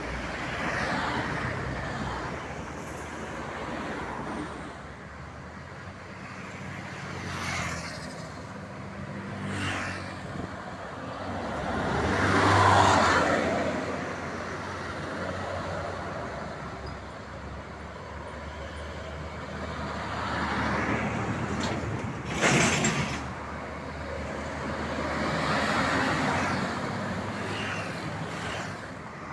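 Road traffic passing by: a string of vehicles, buses and cars among them, each swelling and fading as it goes past. The loudest pass comes about twelve seconds in, and a short, sharp burst comes about twenty-two seconds in.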